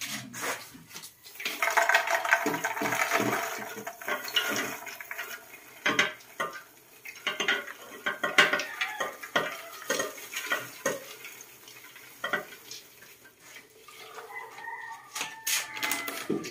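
Popped popcorn poured from one aluminium pot into another: a dense rustling rattle of popcorn falling into the metal pot, with scattered knocks of the pots, thinning out toward the end.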